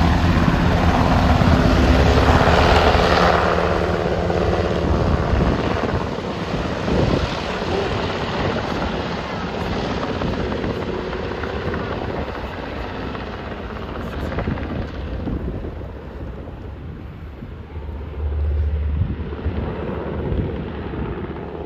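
Sikorsky UH-60 Black Hawk helicopter's twin-turbine engines and rotor lifting off and climbing away: a heavy low rotor chop and turbine noise are loudest in the first few seconds, then fade gradually as it moves off, with a brief swell near the end.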